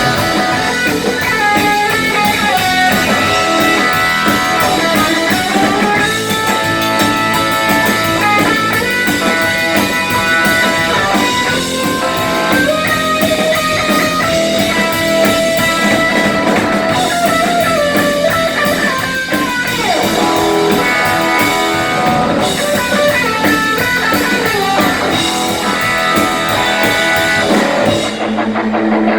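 Live blues-rock band playing loud: an electric guitar lead with bent, sliding notes over drums and bass.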